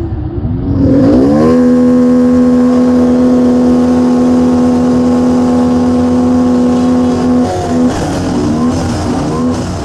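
Motorcycle engine revving up about a second in, then holding a steady pitch for several seconds before easing off, its pitch wavering near the end.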